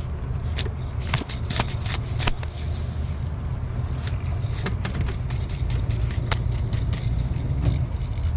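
Alternator pulley on a 2014 Chevy Suburban worked by hand with the belt off: irregular clicks and short gritty scrapes as it is turned and rocked. This is typical of a wearing alternator bearing, which the owner suspects is the rear one. A steady low rumble runs underneath.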